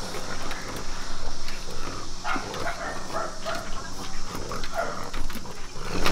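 Excited French bulldogs making short yelps and whines, with claws tapping and scratching on a glass door.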